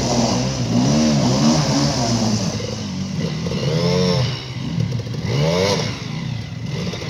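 Enduro dirt bike engine revved hard again and again, its pitch rising and falling in repeated blips, as the bike is forced up a steep muddy slope where it is bogged down and will not climb.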